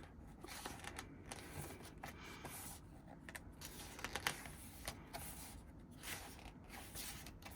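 Faint handling of a glossy album photobook: pages being turned and smoothed, with soft, irregular paper clicks and rustles.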